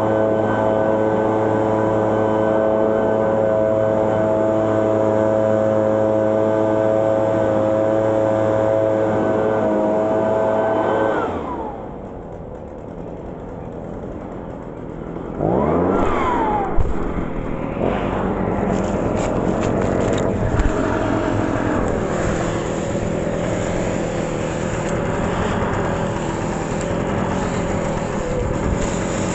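Gas backpack leaf blower running steadily at high throttle, then dropping to idle about eleven seconds in. It revs back up with a rising then falling whine around sixteen seconds, and keeps running with a rougher rushing sound and a few knocks near the end.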